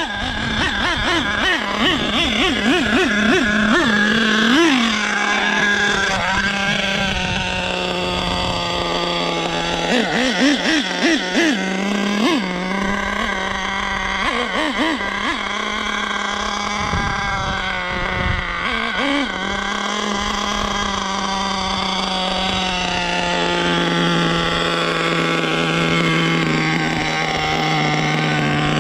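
Nitro engine of a Traxxas Savage X 4.6 RC monster truck running, with a steady drone broken by several clusters of quick revs that rise and fall in pitch as the truck is driven.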